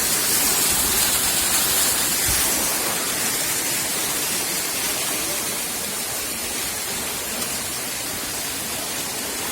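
Waterfall rushing: a steady, even roar of falling water that eases slightly after about two seconds.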